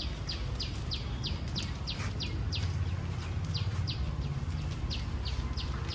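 A bird calling over and over, a fast series of short falling chirps at about three a second with a brief pause midway, over a low steady rumble.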